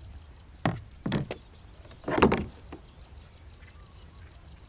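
Gear being handled in a kayak, the paddle set down and the fishing rod taken up: a couple of short knocks in the first second and a half, then a louder, longer noise about two seconds in.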